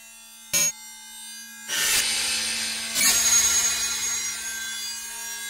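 Electronic intro sound effects for an animated logo: a steady synth drone with a short blip, then a noisy whoosh swelling up about two seconds in and a sharp hit about a second later that fades away slowly.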